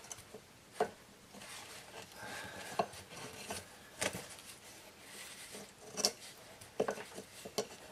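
A wooden edging strip is pressed and shifted by hand against the edge of a ceramic tile, giving soft rubbing and a few light wooden knocks and clicks.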